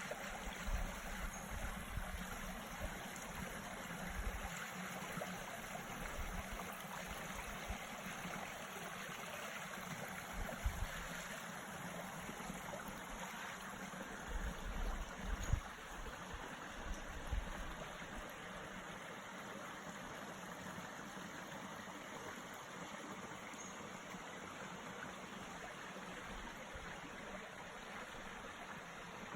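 A small mountain creek flowing steadily over rocks, a continuous rushing and trickling. A few brief low thuds come in around the middle.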